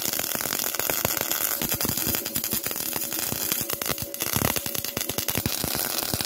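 MIG welder arc crackling steadily as nuts are welded onto steel, a dense sputter of close-packed crackles.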